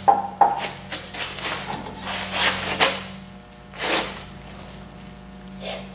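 Metal scraping and knocking in irregular short strokes as a bar and hands work the transmission loose under the truck, over a steady low hum.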